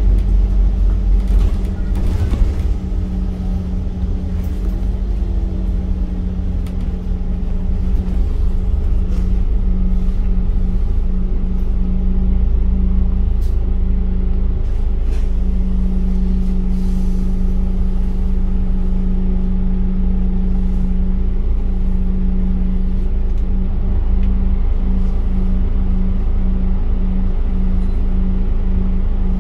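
Scania K310UD double-decker bus running, with a steady engine and road rumble. The rumble eases for a few seconds, then picks up again about seven seconds in, and a droning hum wavers on and off over it.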